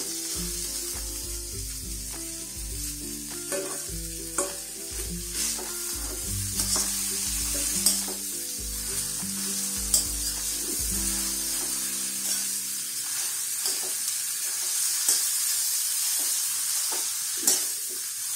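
Potato, onion and carrot frying in oil in a steel kadhai: a steady sizzle, with a steel ladle stirring, scraping and knocking against the pan many times. Background music with low held notes plays under it and stops about two-thirds of the way through.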